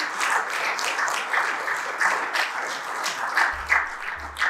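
Audience applauding: many hands clapping in a dense, even patter that cuts off sharply at the end. A couple of low thumps come in the last second.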